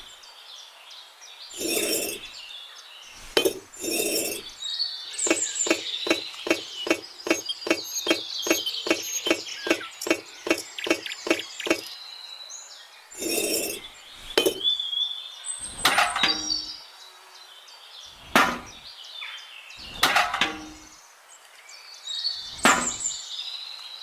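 Miniature bricks clinking and tapping as they are set down one by one into a toy truck bed. In the middle comes a quick, even run of taps, about two or three a second, for several seconds. Birds chirp in the background.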